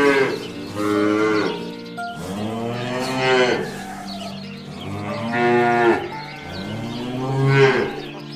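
Cows mooing repeatedly: about five long moos, each rising and then falling in pitch.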